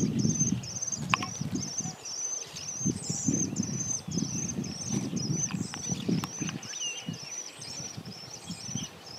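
A small bird singing one short high note over and over, about two a second, with another bird's brief falling chirp about six seconds in. Irregular low rumbling sits underneath.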